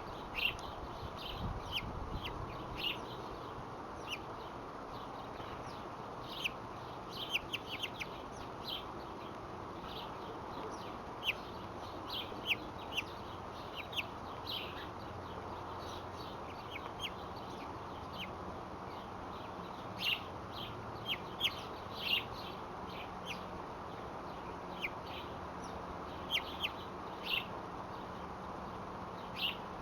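Birds giving short, high chirps at irregular intervals, some in quick clusters, over a steady background hiss.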